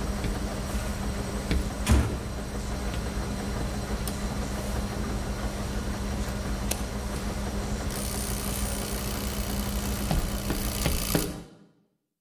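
Steady low rumble and hum of a laundromat's running washing machines, with a sharp knock about two seconds in and a few small clicks. The sound fades out to silence just before the end.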